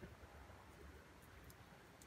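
Near silence: faint outdoor background with a few faint ticks.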